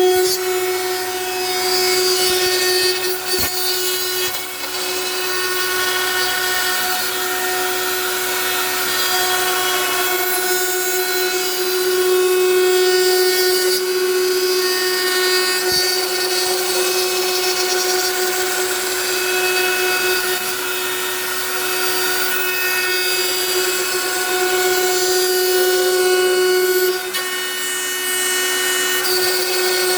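Home-built CNC router's spindle running at a steady high speed with a constant whine while its bit machines the face of a wooden blank, cutting noise hissing over the tone.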